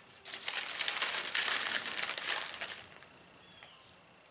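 Crinkling and rustling of something being handled, a dense crackle lasting about two and a half seconds that stops well before the end.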